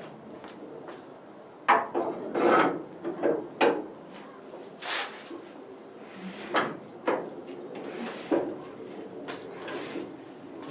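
Rebuilt Ford Model A four-cylinder engine turned over by hand crank with no compression: irregular scraping and rubbing with clicks and knocks, starting about two seconds in. The freshly oiled, never-run engine turns freely.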